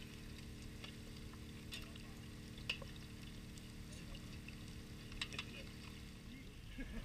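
Metal spatula and fork clinking and scraping against a large frying pan while serving fish into a plastic bowl: a few sharp, scattered clicks over a steady low hum and faint voices.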